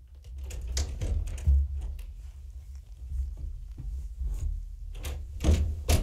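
Irregular taps, thumps and rustling close to the microphone, with a low rumble underneath, as kittens crowd and brush against the camera. The loudest thumps come about a second and a half in and again near the end.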